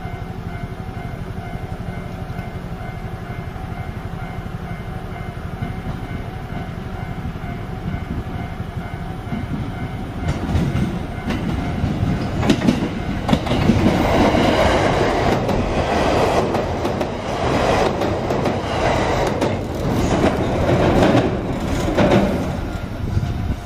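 A JR train passes over a level crossing, its wheels clacking over the rail joints. It comes in about ten seconds in, is loudest in the second half and starts to fade near the end. Before it arrives, the crossing's warning bell rings steadily.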